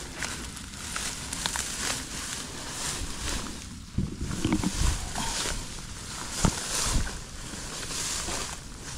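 Tall grass rustling and brushing as someone walks through it, with a few dull low thumps between about four and seven seconds in.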